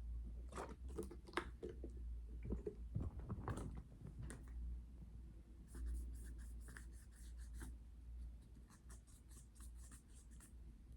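Scratchy rubbing and scrubbing on a phone case, in irregular strokes, heavier in the first few seconds and then a quicker run of light, high scratches from about the middle to near the end.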